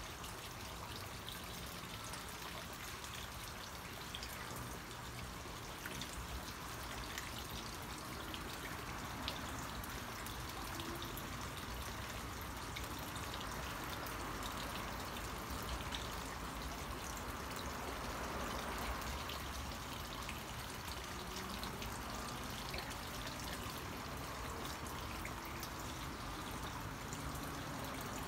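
Steady trickling water with faint scattered drips.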